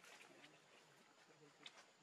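Near silence: faint outdoor background with a single light click about one and a half seconds in.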